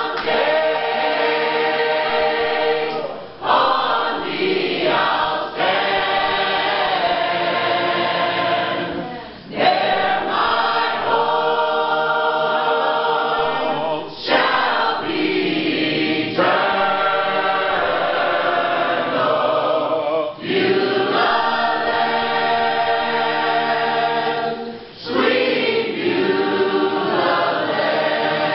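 Church choir of men's and women's voices singing a gospel song, in long held phrases with short breaks between the lines.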